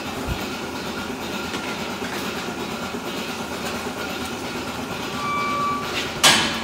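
Steady mechanical running noise of milking-parlor machinery, with a short beep about five seconds in, then a loud metal clank of pen gates near the end.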